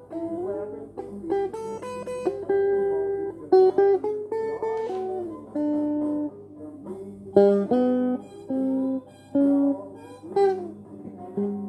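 Electric guitar, a Stratocaster-style solid-body, playing a single-note lead line. Some notes are bent or slid up and down in pitch. A steady low hum runs underneath.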